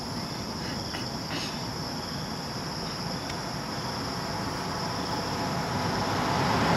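Steady high-pitched insect drone over a broad rushing noise that grows louder toward the end.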